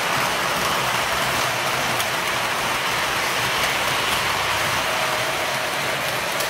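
An O scale operating loading accessory running, its motor and linkage making a steady, even whirring rattle.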